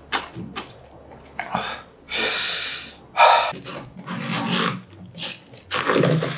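Close-miked eating sounds with small wet clicks, then a long breathy hiss. After that, a kitchen knife cracks and crunches into the rind of a whole watermelon in a run of irregular knocks.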